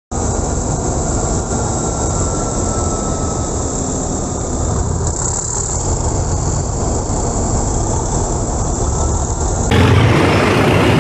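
Diesel locomotive engines idling with a steady low throb. About ten seconds in the sound cuts suddenly to a louder stretch of heavy diesel engine noise.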